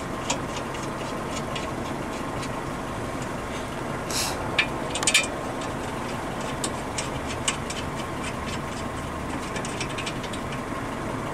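Light metal clicks and clinks of a brake caliper bracket and its bolts being fitted by hand at a car's front hub, a few louder knocks about four to five seconds in, over a steady background hum.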